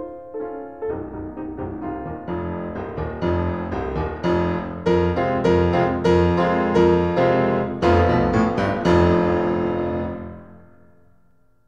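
Background piano music: a run of struck notes that grows louder, then fades out near the end.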